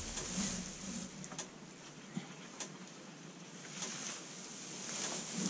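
Faint rustling and scraping of straw bedding as a person crawls on their stomach under a chicken coop, with a few light clicks and knocks.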